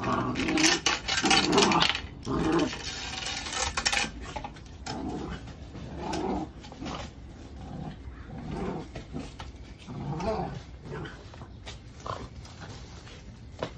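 Labradoodle puppy growling in play while tugging and chewing a brush, in short rough bursts that are loud over the first four seconds and then come quieter and more spaced out.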